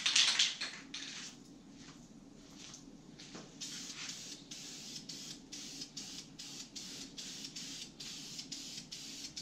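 Aerosol spray-paint can hissing as paint is sprayed onto steel. It gives a loud burst right at the start, then from about four seconds in a run of short, rapid bursts, roughly three a second. A steady low hum runs underneath.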